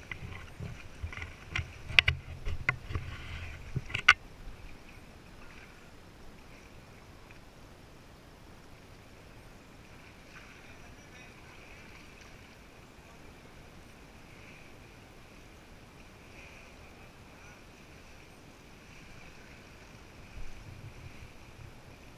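Inflatable kayak being paddled on calm water: a run of sharp knocks and handling sounds in the first four seconds, then a faint, steady high-pitched drone over the quiet water.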